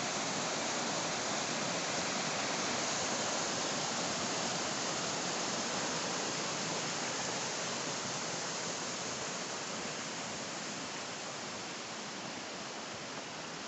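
Waterfall on a mountain stream, running full after heavy rain: a steady rush of falling water that eases slightly in loudness over the second half.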